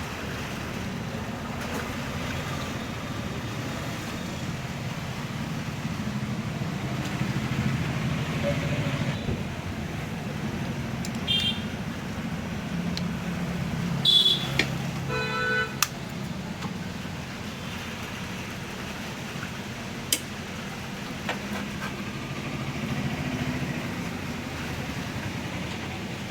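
Road traffic passing, with a vehicle horn honking briefly a little past the middle. A single sharp click comes about twenty seconds in.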